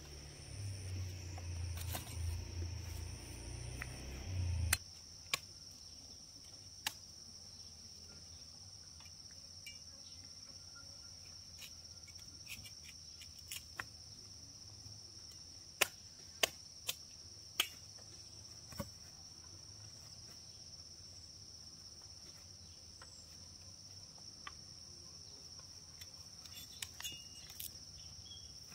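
Insects, likely crickets, keep up a steady high-pitched trill. A low rumble fills the first few seconds and stops abruptly. Scattered sharp clicks and knocks follow, several of them close together in the middle.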